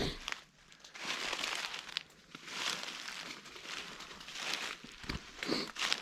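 Footsteps walking slowly through dry leaf litter, the leaves rustling in uneven swells about once a second.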